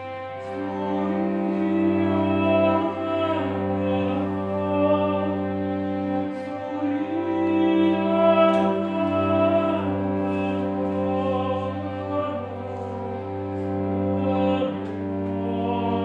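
Cello bowed in slow, long held notes that change pitch every few seconds over a steady low tone.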